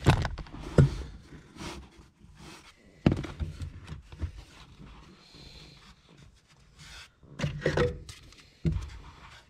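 Irregular knocks, taps and scrapes of hands and a tool working on a car's plastic heater-core housing under the dashboard, with a busier cluster of scraping near the end.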